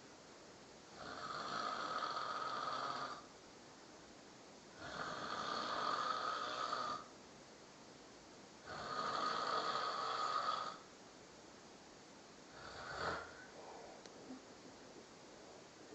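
A person snoring: three long snores of about two seconds each, roughly every four seconds, then a shorter snore near the end.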